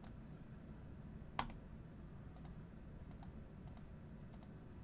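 Faint, scattered computer clicks, about eight in all, with one sharper click about a second and a half in.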